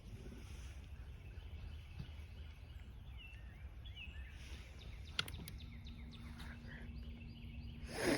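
Outdoor lakeside ambience: small birds chirping in short repeated notes over a low steady rumble, with a sharp click about five seconds in, a steady low hum starting soon after, and a brief louder noise near the end.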